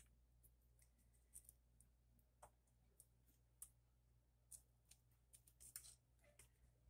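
Near silence with a faint low hum, broken by a handful of faint, short clicks and taps from paper and craft pieces being handled and placed on an envelope.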